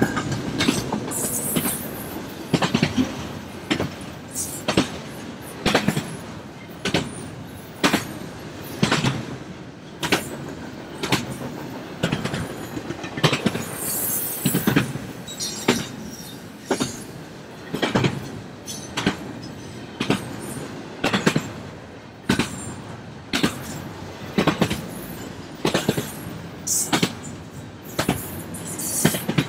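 Norfolk Southern freight cars rolling past, their wheels clacking about once a second over a steady rumble, with brief high squeals from the wheels now and then.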